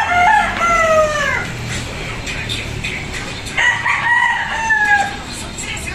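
Rooster crowing twice, each crow about a second and a half long and falling in pitch at the end, the second coming about three and a half seconds after the first.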